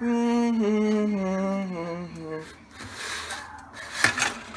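A man's voice humming one long wordless note that slides down in pitch for about two and a half seconds, followed by a short hiss and a sharp click about four seconds in.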